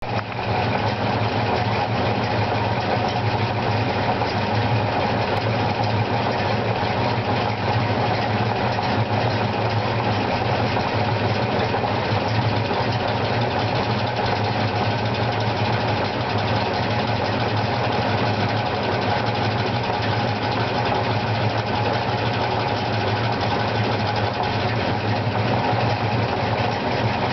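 Ford 302 HO (5.0 L) V8 idling steadily. From about twelve seconds in, a clicking from the clutch and drivetrain comes through while the clutch is disengaged. The clutch, lightweight flywheel and throw-out bearing are all new, and the cause is not yet known.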